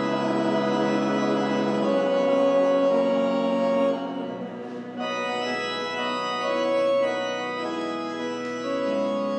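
Organ playing slow, sustained chords that change every second or two, with a softer moment about four seconds in.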